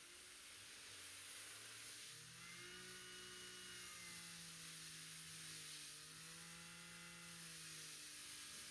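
Faint hiss of a pressure-washer lance spraying water, with the washer's pump motor running under it. The motor's pitch steps up about a second in and then sways gently up and down.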